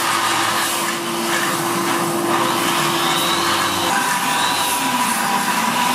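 Angle grinder clamped in a bench jig, running steadily while the welded joint between a stainless-steel tube handle and a steel scraper blade is held against its disc and ground smooth. The tone of the running grinder changes about four seconds in.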